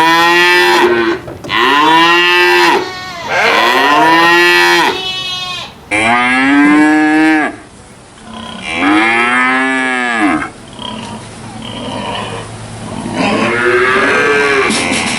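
Cattle mooing, one long moo after another, each about one to two seconds long and rising then falling in pitch. The last moo, near the end, is fainter.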